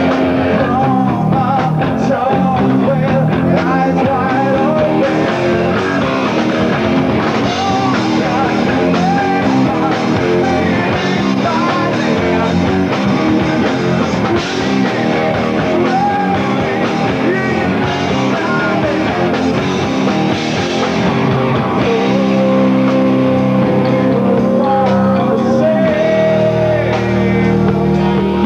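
Rock band playing live: electric guitars, bass and drums, with a male singer.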